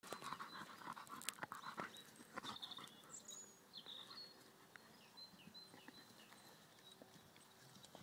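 A black dog rolling on its back in grass: rustling and scuffing with scattered clicks over the first two and a half seconds, then only faint movement. A run of faint short high chirps sounds in the middle.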